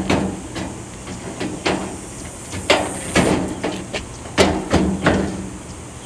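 The sheet-metal condenser fan lid of an air conditioner being shifted by hand on top of the cabinet: a string of about eight irregular metal knocks and clanks.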